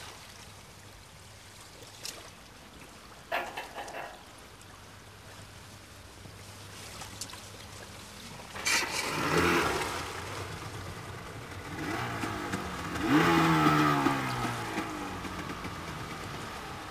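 Outboard motor of a D-class inflatable lifeboat starting up and revving in two surges, its pitch rising and falling, after a few sharp knocks in the first few seconds.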